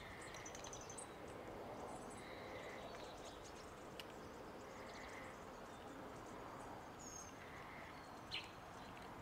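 Quiet outdoor background with faint, scattered bird chirps and a soft call repeating every two or three seconds.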